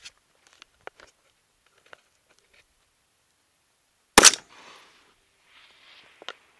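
A single shot from an AR-15 rifle in .223, about four seconds in, with a fainter tail of echo after it.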